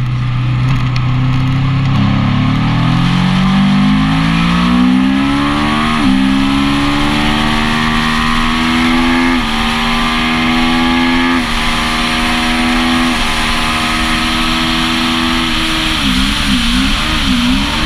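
Onboard motorcycle engine accelerating hard through the gears, with wind rush: the pitch climbs, then drops sharply at each of four upshifts. Near the end the engine note wobbles quickly up and down.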